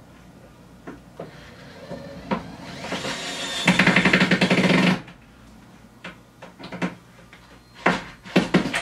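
DeWalt electric screwdriver driving a screw into a drawer slider on OSB: the motor builds up, then runs with a loud rapid rattle for just over a second and cuts off suddenly. A few sharp clicks and knocks follow.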